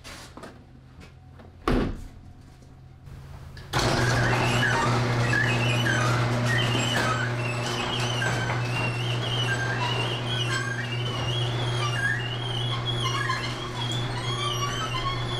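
OM617 five-cylinder turbo diesel in a Jeep Wrangler idling steadily. A door shuts with a thunk about two seconds in, and the engine comes in much louder from about four seconds on.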